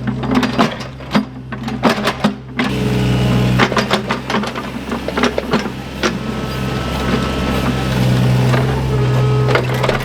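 Engine of a compact digging machine running steadily, easing off briefly about a second in, with frequent clanks and knocks of the bucket working stones, roots and soil.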